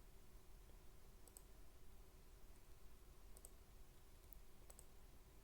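Near silence: a low steady hum with a few faint, sharp computer mouse clicks scattered through it.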